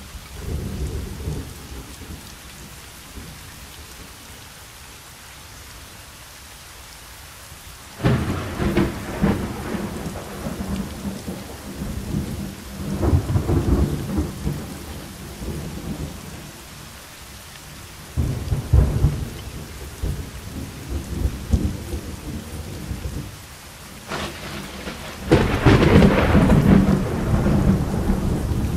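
Thunderstorm: steady rain with several rolls of thunder rumbling in and fading, the loudest and longest roll near the end.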